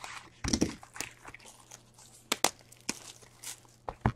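Shrink wrap on a sealed hockey card box being slit with a box cutter and pulled off, with the cardboard box handled. A loud scrape about half a second in, then scattered crinkles, scrapes and several sharp clicks.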